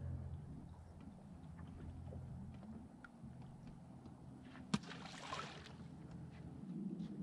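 Low steady hum around a bass boat on open water. About four and a half seconds in there is a single sharp click, followed by about a second of hissing.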